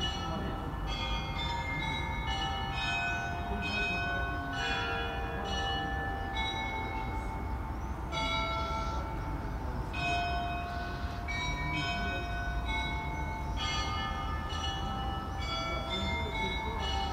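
The bells of St. Michael's Golden-Domed Cathedral ringing an Orthodox peal: many bells of different pitches struck in quick, overlapping rhythm, each strike ringing on, over a steady low rumble.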